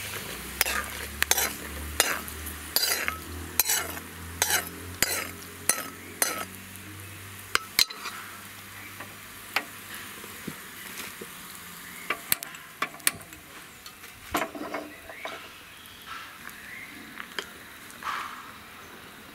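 A steel spoon scraping and tapping ghee-fried coconut pieces out of a pan into a stainless steel bowl of thick rice-and-jaggery batter, a quick run of clicks for the first several seconds. Then a ladle stirs the batter, with occasional clinks against the bowl.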